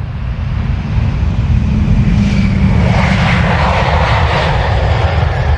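B-2 Spirit stealth bomber's jet engines, heard as the aircraft flies past: a steady deep rumble with a roar that swells in the middle.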